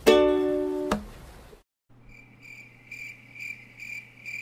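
A short held musical chord ends about a second in. After a brief gap, an insect chirps high and steadily, about two chirps a second, over a low hum.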